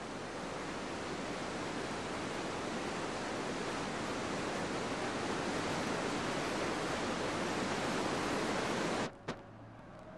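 Waterfall rushing: a dense, steady roar of falling water that cuts off abruptly near the end, followed by a brief click.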